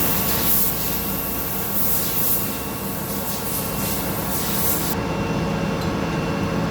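Machinery humming steadily, with a loud hiss over it for about the first five seconds that cuts off suddenly.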